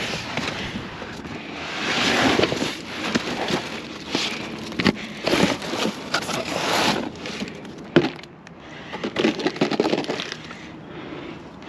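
Cardboard, paper and plastic rustling and crinkling in irregular bursts as a gloved hand rummages through boxes of greeting cards, with a sharp knock about eight seconds in.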